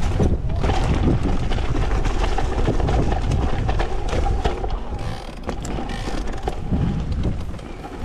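Focus Sam2 6.8 e-mountain bike ridden down a dirt forest trail: tyres rolling over packed dirt and leaves, the bike rattling and knocking over bumps, and wind buffeting the microphone.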